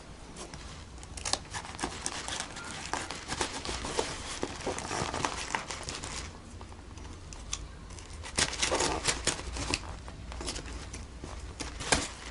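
A shipping box being opened by hand: irregular crinkling, rustling and tearing of packing tape and cardboard, with scattered sharp clicks and taps, and a denser burst of rustling a little past the middle.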